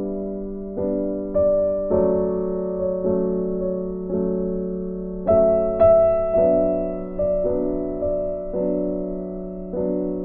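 Soft background piano music: chords struck every second or so and left to fade, with a brighter high note about five and a half seconds in.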